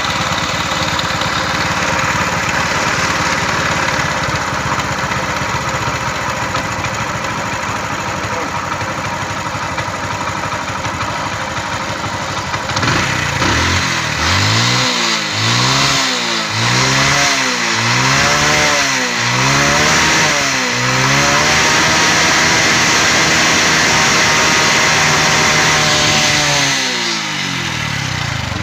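Hero Honda CD100 SS single-cylinder four-stroke motorcycle engine idling steadily, then blipped about six times in quick succession. It is then held at a raised speed for several seconds and winds down near the end, as it is run up while its carburettor is adjusted for a misfire.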